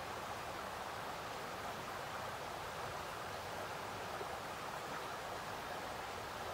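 Shallow, rocky stream running steadily over stones and pebbles, a constant rush of water with no breaks.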